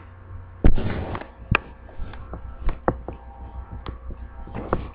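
Handling noise on the camera's microphone: a rustling burst under a second in, then a string of scattered sharp knocks and taps as the device is handled and its lens covered.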